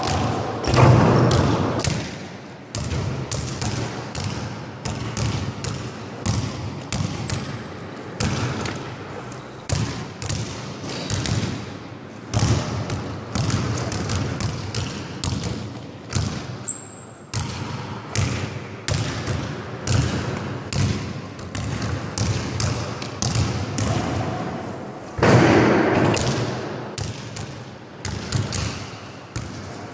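Basketball dribbled over and over on a sports-hall floor, each bounce a sharp smack that echoes around the large hall. There are louder, longer crashes near the start and again about 25 seconds in, and a short high squeak about halfway through.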